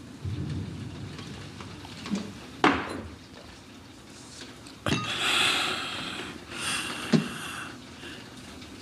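Quiet room with a few soft knocks and clicks and some breathy noise, like a man breathing out heavily.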